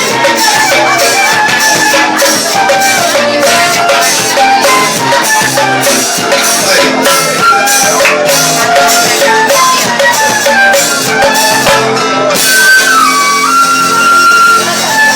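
Live Brazilian pife band music: a pife (cane fife) plays a stepping melody over steady, evenly spaced hand percussion.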